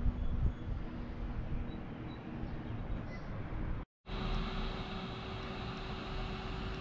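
Wind buffeting the microphone of a bicycle-mounted camera while riding, a heavy uneven rumble with a bump at the start. After a brief cut to silence, a steadier hiss with a faint steady hum.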